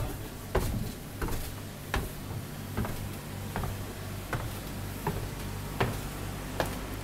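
Footsteps going down wooden stairs, a sharp knock with each step about every three-quarters of a second, over a low steady hum.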